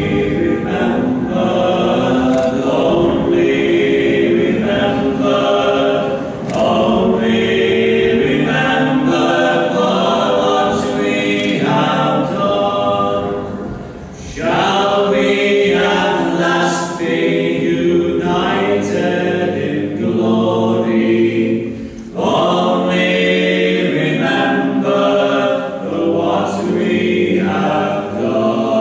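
Choir singing held notes in long phrases, with two brief pauses partway through.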